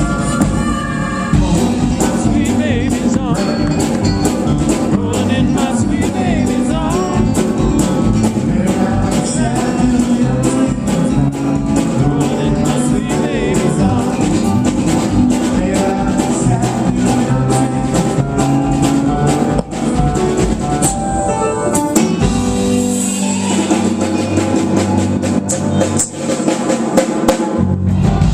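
Live band playing with singing over a drum-kit beat, loud and continuous. In the last few seconds the low end thins out while the drums carry on.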